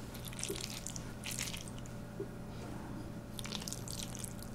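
Chopsticks stirring moist, saucy jjajang ramyeon noodles with a broken fried egg in a bowl: soft wet squishing and sticky noodle sounds in a few short spells, about half a second in, around a second and a half, and near the end.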